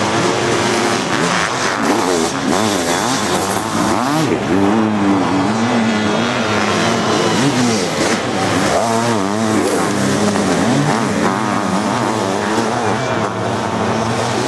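Sidecar motocross racing outfits' engines revving hard, the pitch repeatedly rising and falling as they accelerate and shift, with more than one outfit running at once.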